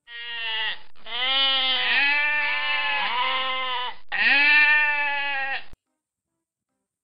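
Goats bleating: several long, wavering calls that overlap, with short breaks about one second and four seconds in, stopping abruptly near the end.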